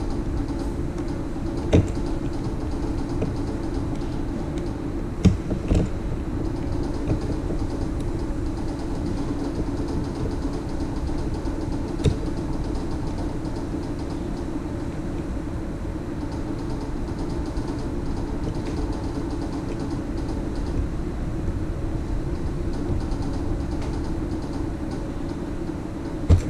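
A steady low mechanical hum, with a few sharp clicks about two, five and twelve seconds in, like plastic Lego pieces being handled.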